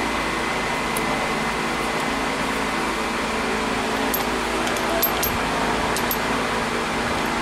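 Steady hum of a drilling machine's motor running, with a few faint light clicks about four to six seconds in.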